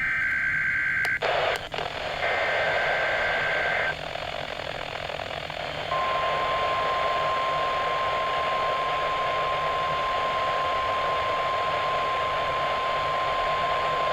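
NOAA Weather Radio Required Weekly Test coming through radio receivers over a steady static hiss. Two buzzy SAME digital header bursts play in the first four seconds. About six seconds in, the single steady warning alarm tone (1050 Hz) starts and holds, the signal that sets off weather radio alarms.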